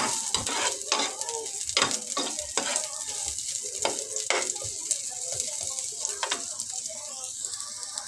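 Oil sizzling in a nonstick frying pan while a metal spatula stirs and scrapes chopped onion and garlic around in it. The stirring strokes are frequent and ease off near the end, leaving the steady sizzle.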